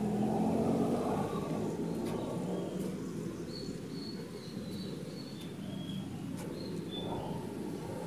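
Low rumble of road traffic, heavier in the first second or two and then easing, with a few faint short bird chirps above it.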